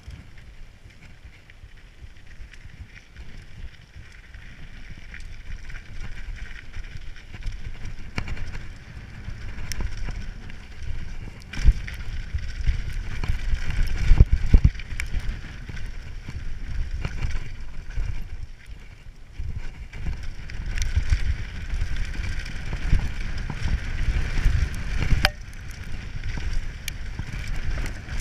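Mountain bike rolling fast down a gravel road: tyres crunching and hissing over loose gravel, with wind buffeting the microphone and scattered sharp clicks and knocks from the bike over bumps. It gets louder as speed builds, with the heaviest knocks around the middle.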